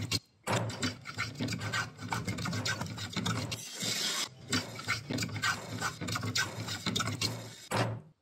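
Hand tools cutting wood: quick, repeated rasping strokes of planes and a handsaw shaving and sawing through wood. The strokes stop abruptly just before the end.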